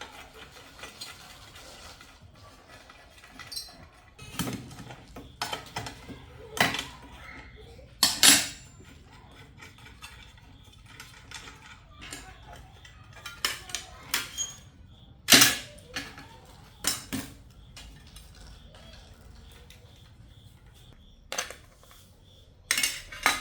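Irregular clinks and knocks of small metal tools and parts being handled, over a faint steady low hum.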